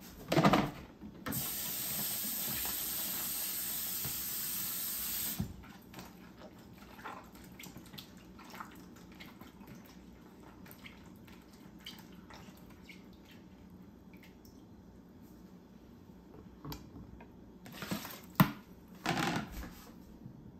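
Kitchen tap running steadily for about four seconds as the mini sweet peppers are rinsed, then turned off. Near the end come a few sharp knocks as the peppers are set down on a plastic cutting board.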